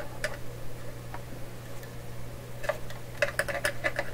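Small metallic clicks of pliers working a nut onto a threaded stud on a radio chassis: a few scattered clicks, then a quick run of them near the end. A steady low hum runs underneath.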